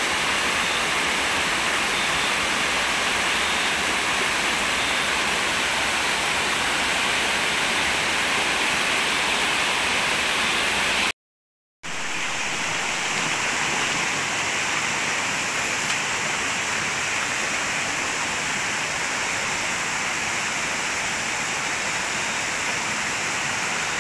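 Steady rush of a rocky stream running over stones, broken by a sudden gap of total silence lasting about half a second a little before halfway, then the same rush again.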